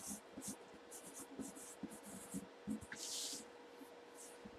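Writing a name on a cardboard box: a run of short pen strokes, with a longer stroke about three seconds in, over a faint steady hum.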